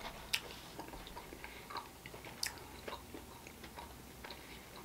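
Close-miked chewing of pita dipped in hummus: faint, wet mouth sounds with small clicks and smacks, two of them sharper.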